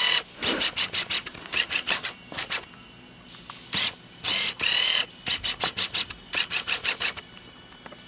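Music leaking from Britz Bluetooth in-ear earbuds, thin and tinny with almost no bass: a run of short hissy beats with a few longer bursts between them.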